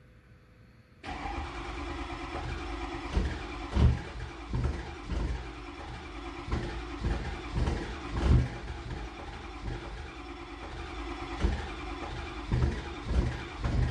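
Ford 6.0 Power Stroke V8 turbo-diesel comes in suddenly about a second in and runs rough on a cold start, with irregular heavy thumps breaking through the running. The stumbling is typical of a cold diesel after a week of sitting, on injectors and glow plugs the owner says are due for replacement.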